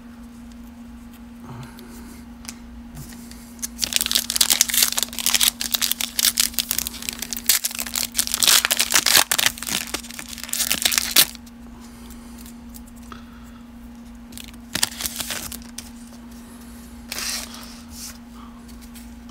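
Foil wrapper of a 2020 Donruss baseball card pack being torn open and crinkled, loud dense rustling for about seven seconds starting some four seconds in, followed by three short crinkles. A steady low hum runs underneath.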